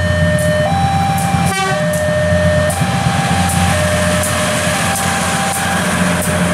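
Level-crossing warning alarm sounding a two-tone signal, switching between a lower and a higher pitch about once a second, while a passenger train runs past close by with a steady low rumble.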